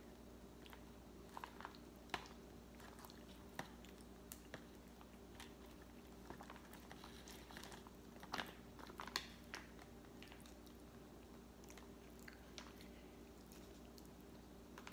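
Faint eating sounds: a metal spoon clicking and scraping in a plastic-wrapped tray of frozen durian, and chewing of the soft flesh, as scattered small clicks over a steady low hum.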